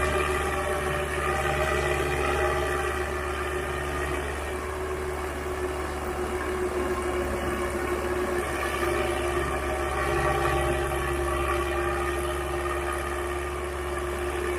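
Sonalika tractor's diesel engine running steadily at low speed, with a constant hum and one steady tone.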